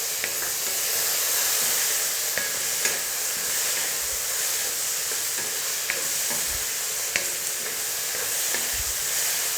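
Masala of onion, potato and spices with freshly added tomatoes frying in hot oil in a kadai: a steady sizzle with a few faint ticks.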